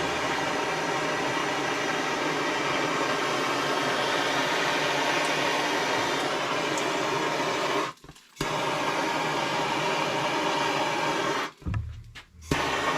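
Handheld gas torch flame hissing steadily while heating a copper pipe joint to sweat-solder it. The hiss breaks off abruptly twice, briefly about eight seconds in and again near the end.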